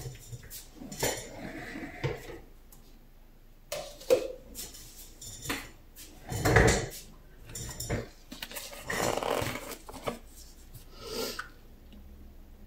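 Knocks and clatter of paint containers and cups being handled and set down on a table, with a heavier thump about six and a half seconds in.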